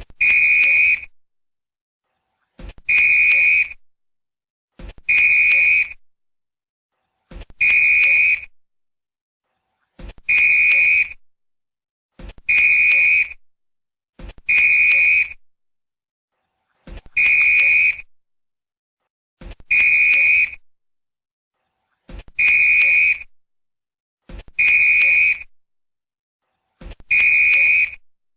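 Football referee's whistle blown in short blasts of about a second each, twelve times, roughly every two and a half seconds, with silence between.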